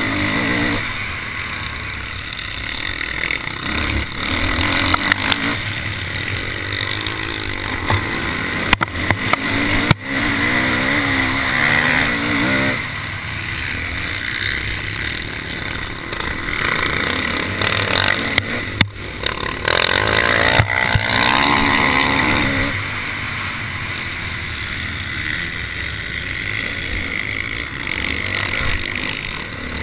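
Off-road motorcycle engine heard from a camera on the bike while racing, its pitch rising and falling as the throttle opens and closes, with wind noise on the microphone and a few sharp knocks from bumps in the track.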